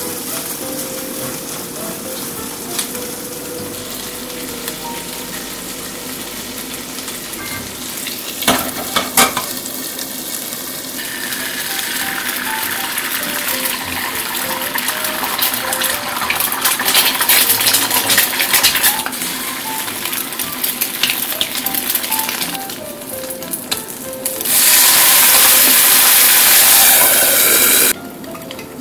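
Hamburg steak patties and a fried egg sizzling in frying pans, with a few light clicks about eight seconds in. Near the end a much louder hiss rises from the pans for about three seconds and cuts off abruptly. Soft background music runs underneath.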